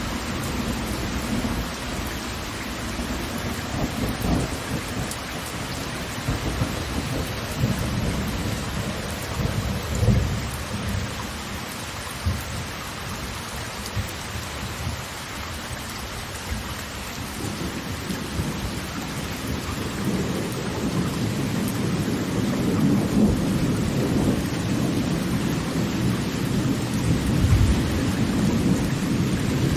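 A large waterfall: heavy falling water making a steady rushing noise, deep and rumbling at the bottom, with a few brief low thuds. It grows louder over the second half.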